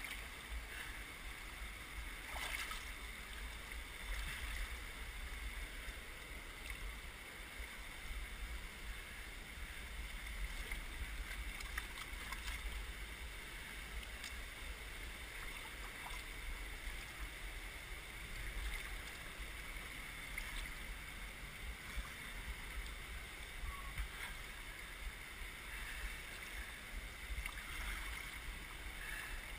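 Wind buffeting on a GoPro's microphone, a flickering low rumble under a steady hiss, with a few faint knocks from handling as the hand moves over rock.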